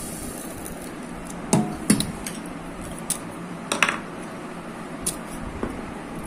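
Several sharp, irregularly spaced clinks and knocks on a stainless steel mixer-grinder jar as cardamom pods and a piece of dry ginger are dropped in on top of roasted moong dal and the jar is handled.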